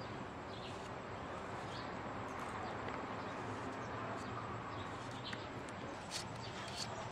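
Steady background hiss with faint chirps, and a few sharp clicks near the end as a knife cuts vegetables over a plastic bowl.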